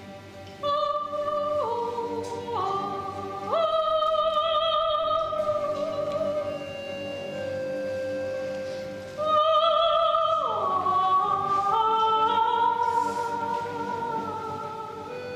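A woman sings a Russian folk song in a full, classically trained voice with vibrato, in two long phrases with a break in the middle. A bayan and accordion orchestra holds sustained chords beneath her.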